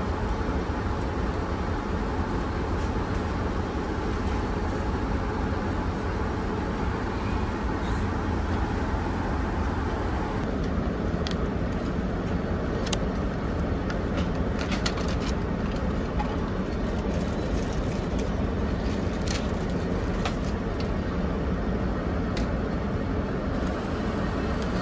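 Steady airliner cabin noise in flight, a constant hum of engines and airflow. In the second half, a few short clicks and rustles as an in-flight meal tray and its foil-covered dish are handled.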